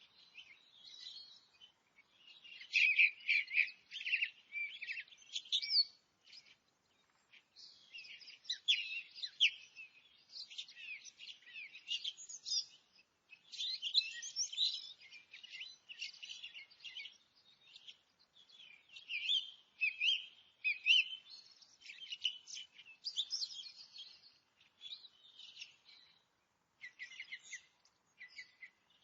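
Several forest birds singing and chirping together in a dense chorus of quick, high twittering phrases and trills, with a couple of brief pauses.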